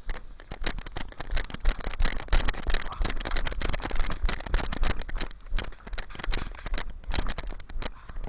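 Someone moving over rough ground, a quick irregular run of footsteps, gear rattling and rustling, with a low wind rumble on the microphone.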